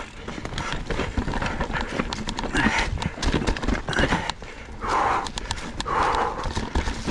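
Ibis Ripmo V2 full-suspension mountain bike clattering down a rocky trail: a dense run of knocks and rattles from tyres hitting rock, the chain slapping and the frame shaking, over wind rumble. Several short hard breaths from the rider come through about a second apart.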